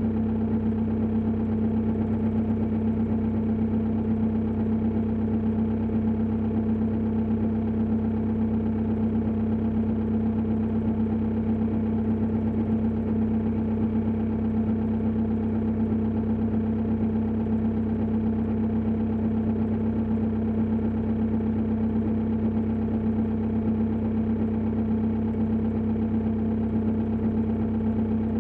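Opel Insignia 2.0 four-cylinder turbodiesel engine idling steadily, with a knock at idle that is the fault being recorded.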